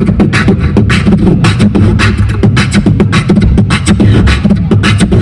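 Beatboxing into a handheld microphone cupped at the mouth, amplified: a fast, unbroken stream of snare-like clicks and hi-hat hisses over a heavy bass line.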